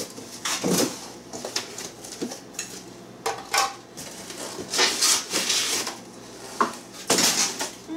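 Cardboard scraping and plastic wrapping crinkling in irregular bursts as cardboard inserts and plastic-wrapped parts are pulled out of a shipping box.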